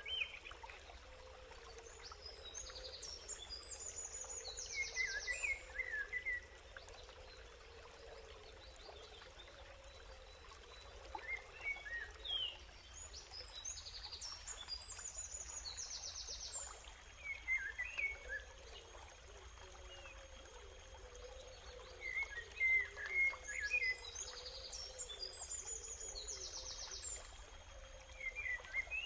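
Birds singing: a phrase of rapid high notes with chirping calls, repeating about every ten seconds, over a faint steady wash of running water.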